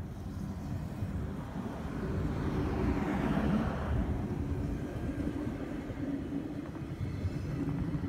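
JR Hokkaido 731 series electric multiple unit rolling along the platform: a steady rumble of wheels on rail with a motor hum, swelling to its loudest about three seconds in and then easing off.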